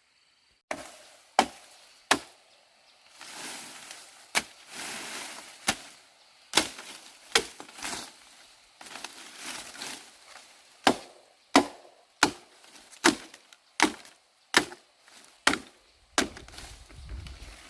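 Repeated chopping strikes on wood, about fifteen sharp blows. In the second half they come at a steady pace of a little more than one a second, with rustling and scraping between blows.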